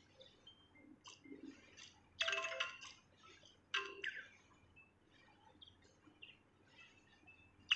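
A songbird singing: scattered short high chirps, and two loud rapid song phrases, about two seconds in and again near the four-second mark.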